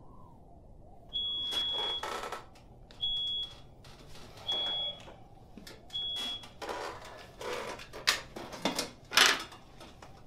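Four high electronic beeps, the first about a second long and the rest shorter, each with a burst of hiss. Then shuffling and two sharp knocks as a man takes his feet down off a desk and turns in his chair.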